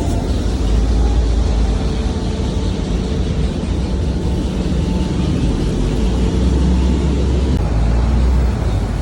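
Heavy industrial wood-processing machinery, such as a stationary wood chipper line, running steadily with a deep continuous rumble that swells slightly near the end.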